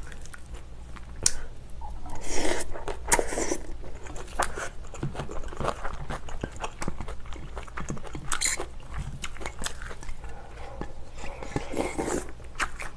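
Close-up eating sounds of braised kimchi with pork and rice: wet chewing with many small mouth clicks, and louder bursts about two, eight and twelve seconds in, the last as the rice bowl is tipped to the mouth. A steady low hum runs underneath.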